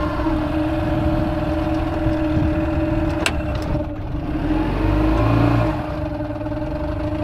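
Outboard motor on a small fishing boat running at idle with a steady hum, just restarted after stalling when put in reverse. A sharp click comes about three seconds in, and a louder low rumble follows for about a second near the five-second mark as the motor is worked into gear, which it will not easily hold.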